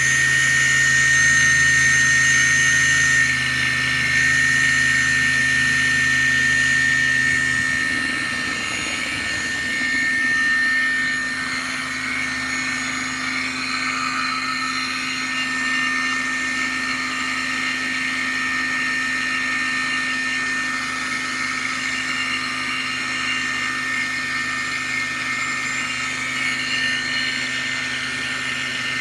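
RC airplane brushless outrunner motor spinning steadily under its electronic speed controller: a constant high-pitched whine over a lower hum. The lowest part of the hum drops away about eight seconds in.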